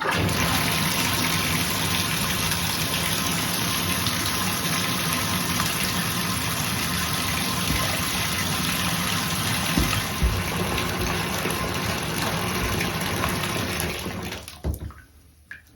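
Water running steadily from a Moen shower faucet, shutting off shortly before the end as the lever is turned off.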